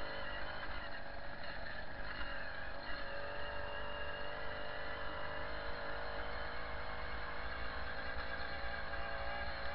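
Babetta 207 moped's small single-cylinder two-stroke engine running steadily at an even pitch while riding along a dirt track, with a low rumble underneath.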